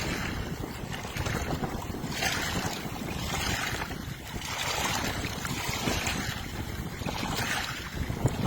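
Strong wind buffeting the microphone with a steady rumble. Small wind-driven waves wash onto the lake shore in repeated surges of hiss every second or two.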